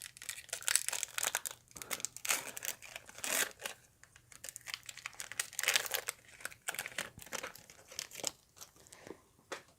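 Foil Pokémon TCG Lost Thunder booster pack wrapper crinkling and tearing as it is opened by hand: a dense run of irregular crackles that thins out toward the end.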